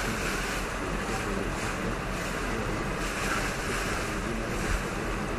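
Muddy floodwater rushing past in a fast torrent, a steady, even rushing noise.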